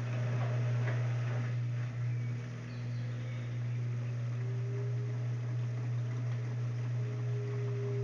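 LG Prime front-loading washing machine running its drum after balancing the load for the final spin: a steady low motor hum, with a steady higher whine joining about halfway through and again near the end.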